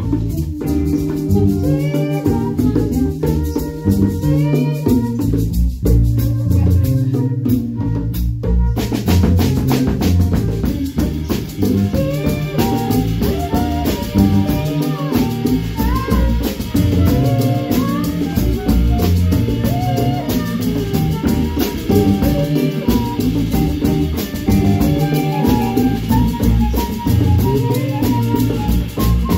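Instrumental band music with a drum kit and a stepping bass line under melody notes; the sound fills out with cymbals and brighter instruments about eight or nine seconds in.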